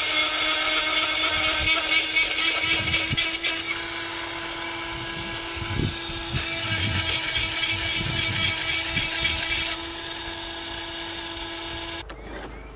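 A Stihl 090 chainsaw's 137cc two-stroke engine running at a steady pitch in an Alaskan chainsaw mill while its chain rips a slab off a white oak log. The high cutting noise grows and fades a couple of times, and the sound cuts off suddenly near the end.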